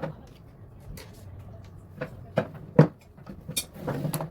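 A series of sharp knocks and clunks, like objects being handled and set down. Five or six come over the few seconds, the loudest just past the middle, with a short rattling stretch near the end.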